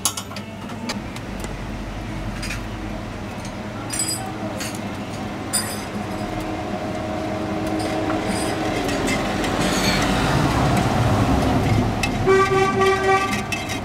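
Street traffic: a motor vehicle's engine running and growing louder, then a car horn sounding for about a second near the end. A few light metallic clinks come earlier.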